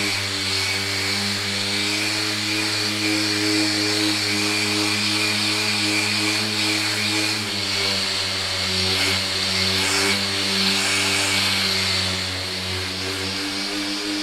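Random orbital sander with a dust-extraction hose, running steadily as it sands cured fibreglass body filler on a van's cab panel: a continuous motor hum with the hiss of the pad on the filler.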